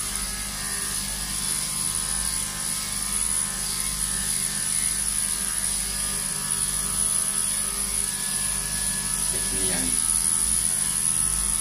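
Andis electric dog clipper with a #4FC blade running with a steady buzz as it is pushed through a Pomeranian's coat.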